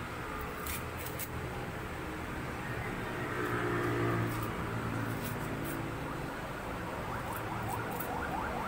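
Dry, papery onion skin crackling in a few short, faint clicks as it is peeled off by hand with a knife, over a steady background rumble that swells into a low drone around the middle.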